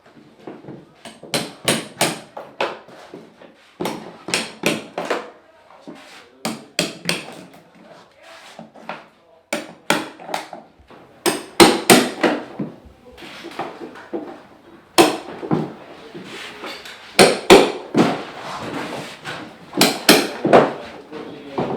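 Hammer blows, in quick runs of four or five strikes with short pauses between the runs.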